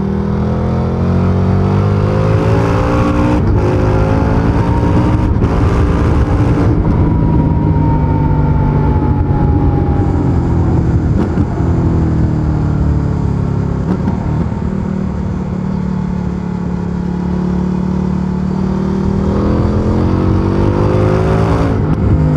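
Stock exhaust of a 2023 Indian FTR Sport's V-twin engine under acceleration: the pitch climbs in two runs in the first six seconds, with a short break at each upshift. It then falls off, runs fairly steadily for a long stretch, and climbs again near the end.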